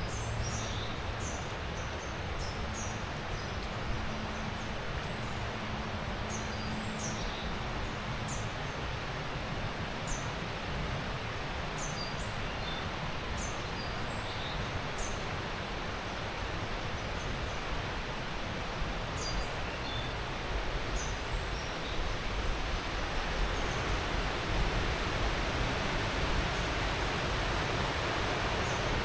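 Steady rush of river water, with short, high bird chirps scattered through the first two-thirds. The water grows louder after about twenty-two seconds.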